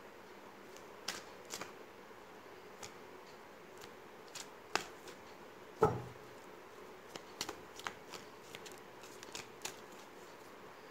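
A deck of tarot cards being cut and handled into piles, with scattered soft card clicks and flicks and one louder knock about six seconds in.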